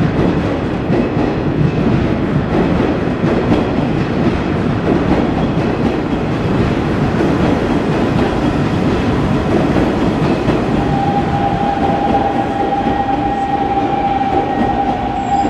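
Kintetsu electric train running on the station tracks with a steady, loud rumble of wheels on rail; a steady high-pitched tone joins about ten seconds in.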